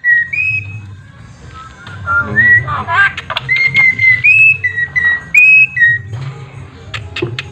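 Javan myna whistling a run of clear, steady notes with small upward slides, broken up around the middle by harsh chattering calls, with a few sharp clicks near the end, over a steady low hum.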